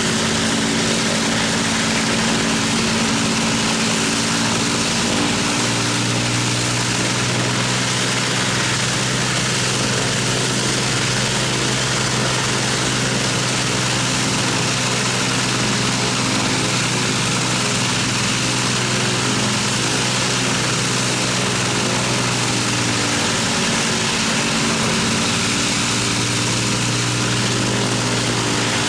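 The Rolls-Royce Merlin V12 engines of an Avro Lancaster running on the ground with propellers turning, a loud steady drone. The engine note shifts about six seconds in and again near the end.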